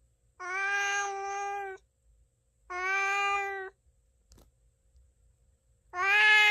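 A domestic cat meowing: three long meows, each held at a nearly steady pitch, with a faint click between the second and third.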